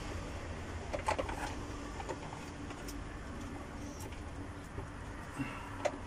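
Plastic parts of a Clatronic vacuum cleaner's open housing and cord reel clicking and knocking as they are handled, with a few clicks about a second in and a knock near the end, over a steady low hum.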